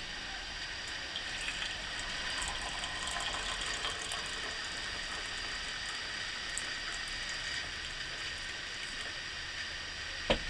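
Coffee poured from a French press into a cup, a running splash over a steady hiss. A single sharp knock comes near the end.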